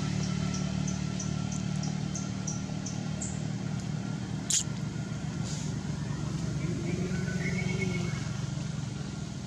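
A steady low engine hum, like a motor vehicle idling, with a run of short high chirps about three a second over the first few seconds and one sharp click about halfway through.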